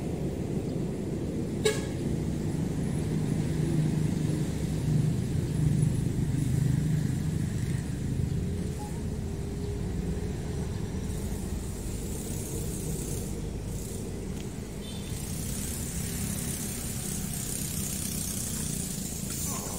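Road traffic running steadily, with a vehicle going by loudest about five seconds in. A single sharp click comes a little under two seconds in.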